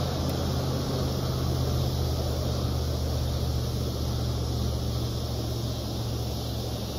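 A steady, low engine drone that holds at an even level throughout.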